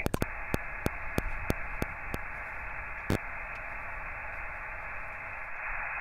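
Amateur HF transceiver's receiver hissing with band noise and static on single sideband, the sound of an open frequency while listening for replies to a CQ call. A string of faint ticks comes over the first two seconds, and one more about three seconds in.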